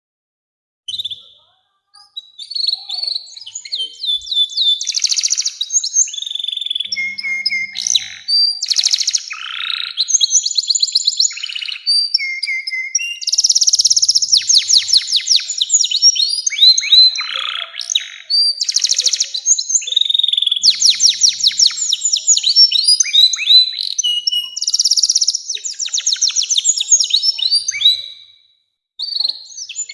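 Domestic canary singing a long song of rapid rolling trills mixed with rising and falling whistled notes. It starts about a second in and pauses briefly near the end before starting again.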